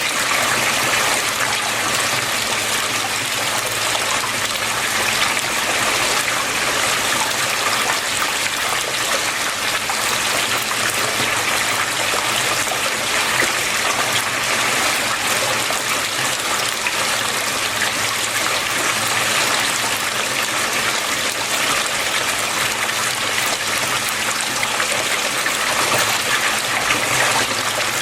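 Water flowing and trickling steadily, an even splashing hiss with no change in level.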